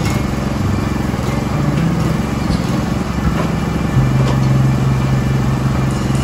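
Norwood HD36 portable bandsaw sawmill running, its engine droning steadily. About four seconds in, a stronger low hum sets in as the engine note changes.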